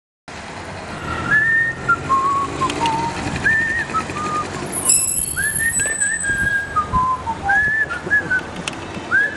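Someone whistling a tune: repeated phrases that swoop up to a held high note and then step down in pitch, several times over.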